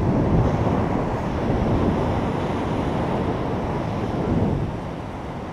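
Wind buffeting the microphone over the steady wash of surf breaking on a sandy beach.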